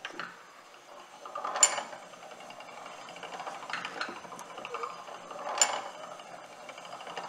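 Feed pawl of a 1911 Silver Manufacturing No. 1 hand-crank post drill clicking over the teeth of its cast-iron ratchet wheel as the drill is cranked, advancing the automatic down-feed. Two sharp clicks about four seconds apart, with lighter clicks and a faint mechanical rattle between.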